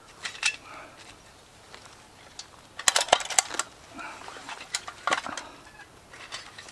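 Nested metal camp pots clinking and clattering as the stack is handled and set down. The busiest run of sharp clinks comes about three seconds in, with more around five seconds.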